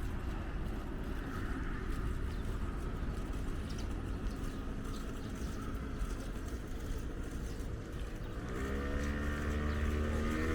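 City street traffic rumbling steadily. About two-thirds of the way through, a motor vehicle's engine drone comes in, rising in pitch and growing louder.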